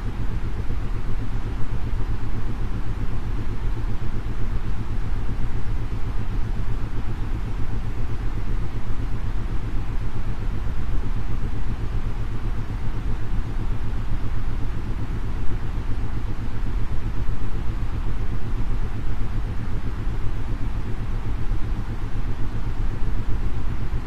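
Steady synthetic white noise, heaviest in the deep bass with a hiss above, with isochronic tones pulsing underneath at a brainwave-entrainment rate of roughly eight to ten pulses a second.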